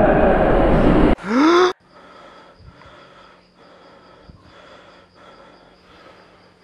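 Loud music and voices cut off abruptly about a second in, and a man gives a short, sharp gasp that rises in pitch as he starts awake. Then quiet night ambience: crickets chirping in a slow, regular pulse over a low steady hum.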